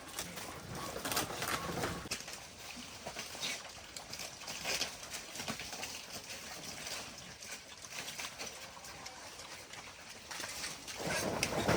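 Wild boar moving and feeding: irregular clicks, rustling and animal noises, louder near the end.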